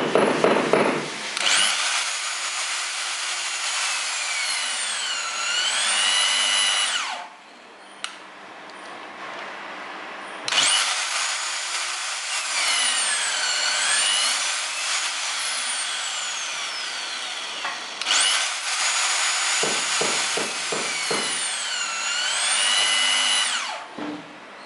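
HANPU electric torque wrench running three times against a torque tester. Each run is a motor and gear whine that starts up quickly, sags in pitch as the load comes on, climbs back and cuts off suddenly. A few knocks come just before the last run.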